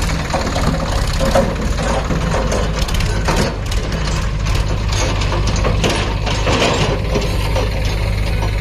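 Diesel engines of a tractor and a backhoe loader running steadily at idle, with irregular metallic clanks and scraping from the backhoe's arm and bucket working earth.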